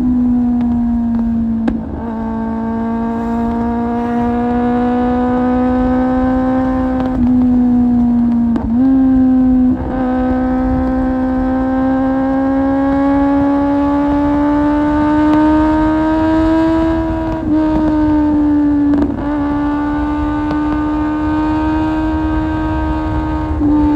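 Kawasaki Z750's inline-four engine breathing through an Akrapovic exhaust under way, a steady high-pitched run that climbs slowly in pitch, with brief dips about seven times as the throttle is eased or gears are changed. A low rush of wind runs underneath.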